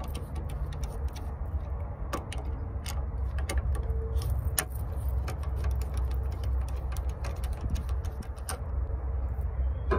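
Sharp, irregular clicks and ticks of a hand screwdriver's T15 bit turning small Torx screws out of the plastic radiator-support cover, over a steady low rumble.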